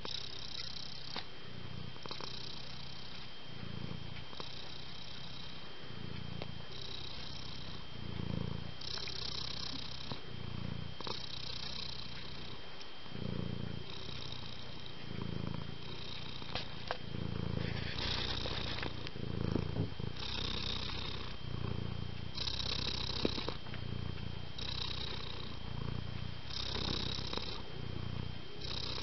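Long-haired tabby house cat purring close by, in a steady rhythm that rises and falls with each breath about every one and a half to two seconds.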